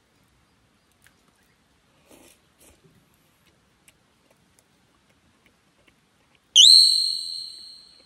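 A single high ringing tone that slides up quickly and then rings out, fading over about a second and a half. Before it come a few faint clicks and soft rustles.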